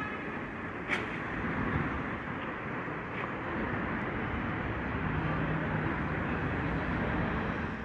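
Steady noise of a vehicle running, with a short click about a second in.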